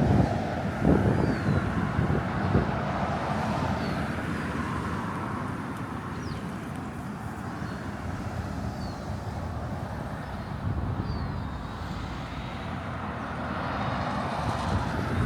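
Wind rumbling and gusting, with faint short high chirps recurring every second or two.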